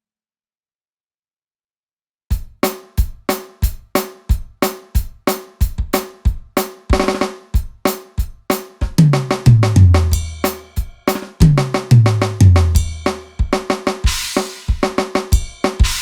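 Drum samples from a Roland SPD-30 Octapad electronic percussion pad playing a programmed pattern. After about two seconds of silence, a steady beat of drum hits starts, grows busier midway with low tom hits that fall in pitch, and has a cymbal crash near the end.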